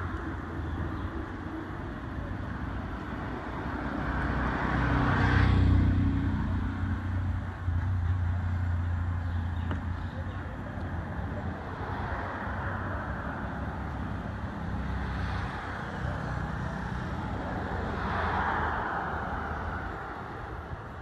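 Road traffic: a vehicle engine running with a steady low hum, while vehicles pass by in three swells that rise and fall, the loudest about five seconds in.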